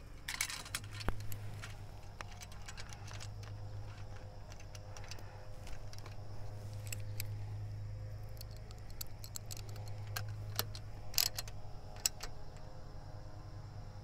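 Metal hardware clicking and clinking irregularly as an Enphase M250 microinverter is fastened onto a solar racking rail, with a steady low hum underneath.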